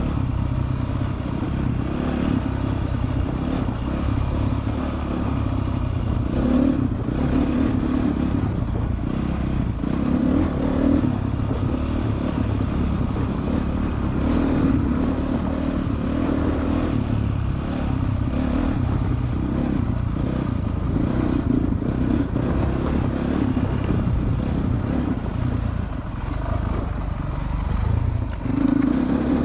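2013 Honda CRF450R's single-cylinder four-stroke engine running as the dirt bike rides rough single track, rising and falling with the throttle, with several brief louder bursts of throttle.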